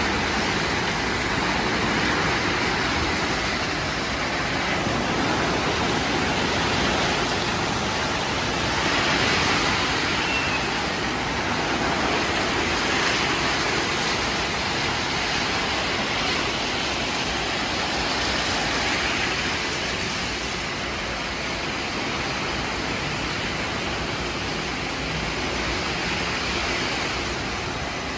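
Automatic tunnel car wash running: tall rotating brushes scrubbing a pickup truck while water sprays over it, a steady rushing noise that rises and falls a little every few seconds.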